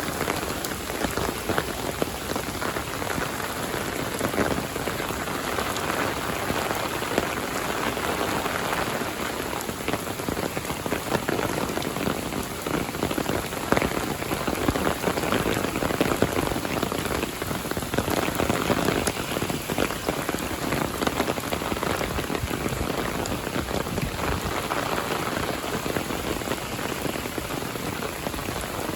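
Heavy rain falling steadily, a dense, continuous spatter of drops with no let-up.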